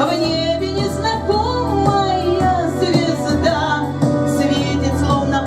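A song with a female singing voice over instrumental accompaniment.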